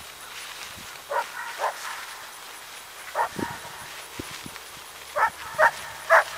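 An animal calling: six short, loud calls in three groups, two, then one, then three close together near the end.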